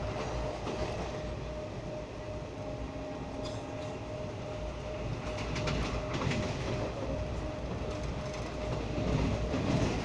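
Passenger train running at speed, heard from inside a coach: a steady rumble of wheels on the rails, with clusters of sharp clicks as the wheels cross rail joints, about halfway through and again near the end, where it gets a little louder.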